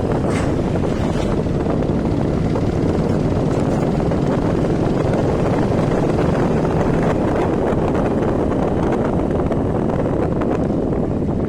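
Steady wind rumble on the microphone over the running noise of a moving road vehicle.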